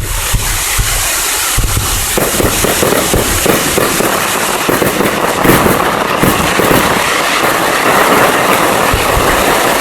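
Fireworks crackling: a dense, continuous rattle of many small rapid pops that thickens about two seconds in and stays loud.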